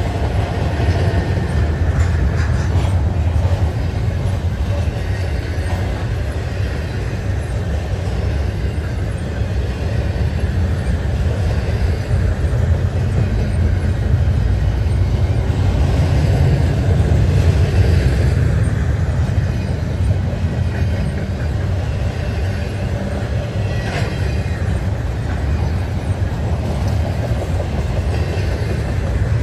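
Double-stack intermodal freight train's container well cars rolling past: a steady low rumble of steel wheels on the rails, with a few clicks from the wheels and rail joints.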